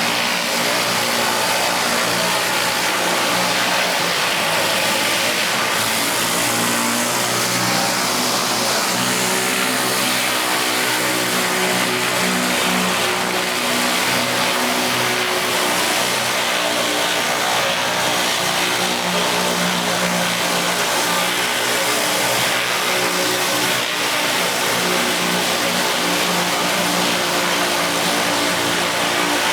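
Gas-engine pressure washer running steadily, with the hiss of high-pressure water spraying.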